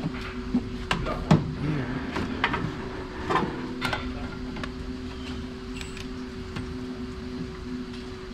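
Scattered metallic clicks and knocks of tools against the car's rear suspension and wheel-well sheet metal as the shock absorber's upper mounting nuts come off. They are densest in the first four seconds, the loudest about a second and a half in, and then thin out. A steady mechanical hum runs underneath.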